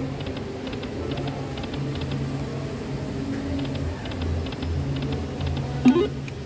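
Dragon Link slot machine spinning: clusters of short, quick ticks over low electronic game tones, with one sharp hit about six seconds in.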